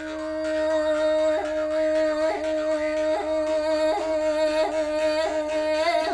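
A woman's voice singing in the Sakha style, holding one steady note with a quick upward vocal flick about once a second.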